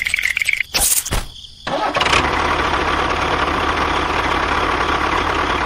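A sharp click about a second in, then an engine starts and runs steadily.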